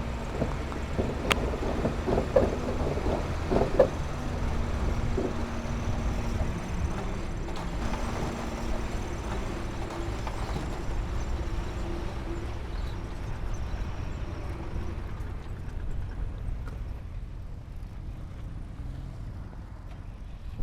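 Heavy diesel earthmoving machinery running steadily, with several sharp metallic clanks in the first few seconds; the engine noise slowly fades toward the end.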